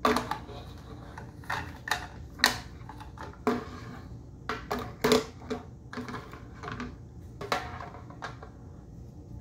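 A child handling small objects while carrying out a task step: irregular light clicks and knocks, about a dozen over several seconds.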